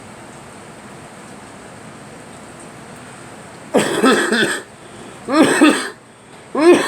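A person coughing: three fits of coughing come one after another, starting about four seconds in, each lasting under a second, with the third the loudest.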